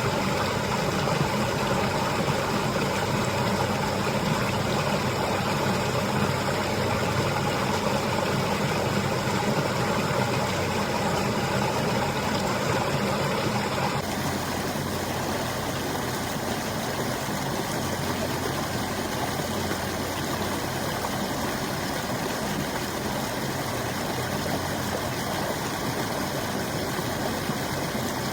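Waterfall: rushing, falling water as a steady, loud roar. About halfway through the sound changes abruptly, becoming slightly quieter with a different tone.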